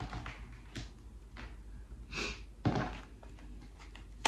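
Tarot cards handled on a tabletop: light clicks and taps as a card is set down and the deck is gathered. There is a short hiss about two seconds in, a heavier thud a little before three seconds, and a sharp knock at the very end.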